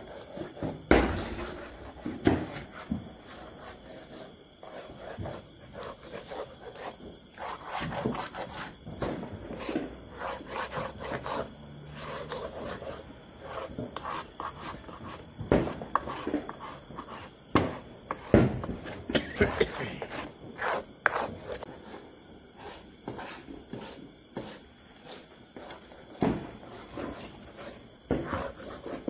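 A spatula scraping and knocking against a steel kadhai as thick cashew paste is stirred, in irregular strokes. Behind it, crickets keep up a steady high trill.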